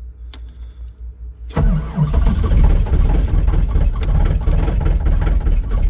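Starter cranking a cold diesel truck engine hard, starting about a second and a half in and churning steadily without catching. The glow plug and intake heater have cycled only once in severe cold, so the engine is slow to fire. Before the cranking a low, regularly pulsing hum is heard.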